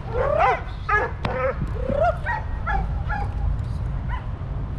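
Brown female Dobermann giving a run of short, high-pitched yelping barks at the helper while being agitated in protection work.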